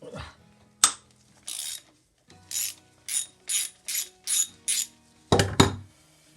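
Socket ratchet wrench clicking in a run of short strokes, about two or three a second, as a bolt is worked loose, with a loud clunk near the end.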